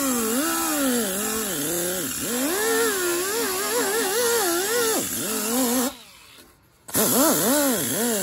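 Pneumatic right-angle die grinder spinning a twisted-wire cup brush against the car's underside, scrubbing off rust and loose undercoating. Its whine wavers in pitch as the brush is pressed in and eased off, over a steady hiss. It stops about six seconds in and starts again a second later.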